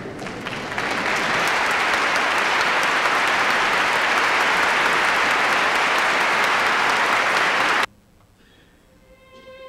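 A large concert-hall audience applauding, swelling about a second in and then cutting off suddenly near the end. After a moment's hush the orchestra's strings faintly begin to play.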